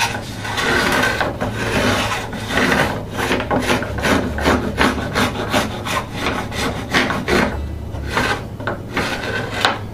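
Scratch stock with a steel cutter made from an old saw plate, scraping wood in quick repeated back-and-forth strokes, taking off a little with each pass.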